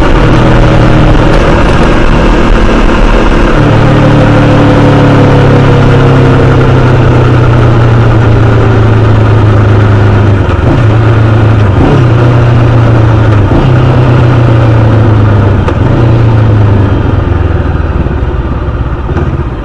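Motorcycle engine running under way with heavy wind and road rush, the engine tone breaking briefly several times over a few seconds as the throttle is rolled off or gears are changed. It gets quieter near the end as the bike slows.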